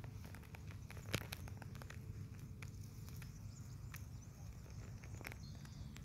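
Scattered light clicks and crackles of dry vegetation being brushed and stepped through, with a sharper click about a second in, over a steady low rumble.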